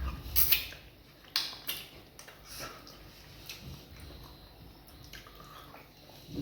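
Wet mouth sounds of eating fufu and vegetable soup: chewing with sharp lip smacks, several in the first two seconds, then quieter chewing with an occasional smack.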